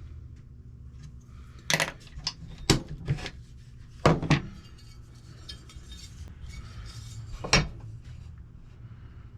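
Hand tools clinking and knocking as they are picked up and set down on a workbench: several sharp metallic clinks in quick groups, then one more near the end, over a steady low hum.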